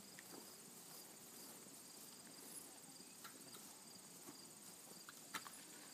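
Faint, steady chorus of field insects: an even, high-pitched trill of rapid pulses, with one light click near the end.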